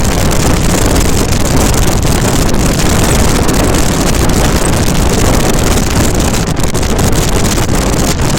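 Steady loud rush of a WAP7-hauled Indian express train running at speed, with wind buffeting the microphone.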